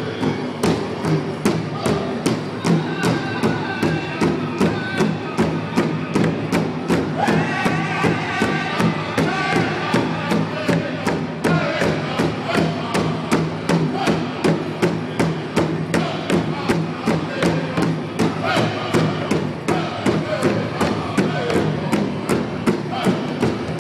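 Powwow drum group playing an honor song: a large drum struck in a steady, even beat with a chorus of singers over it. The singing is strongest about a third of the way in.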